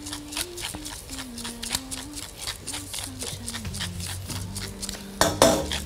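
Pepper mill being twisted, grinding black pepper in a steady run of small crunching clicks, about four or five a second. A brief louder sound cuts in near the end.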